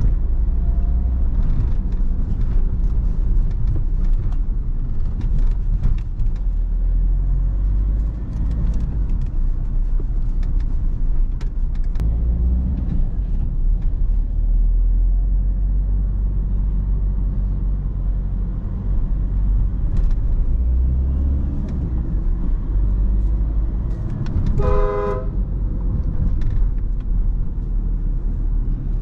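Škoda Octavia 1.9 TDI four-cylinder turbodiesel running with low road rumble while driving in town. A car horn gives one short toot near the end, under a second long.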